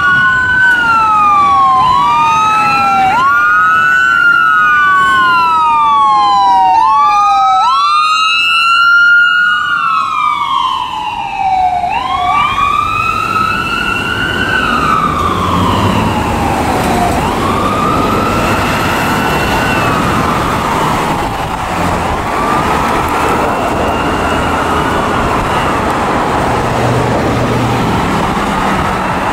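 Ambulance's electronic siren wailing. Each cycle rises quickly and then glides back down, about every two seconds. About halfway through the siren grows fainter, and passing road traffic rumbles under it.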